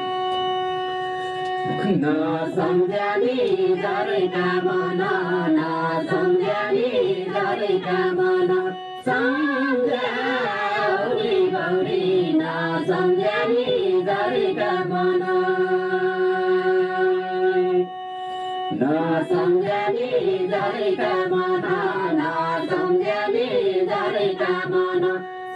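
Nepali Deuda folk song sung by male and female voices over an electronic keyboard holding long steady notes underneath. The music breaks off briefly about nine seconds in and again for under a second near eighteen seconds.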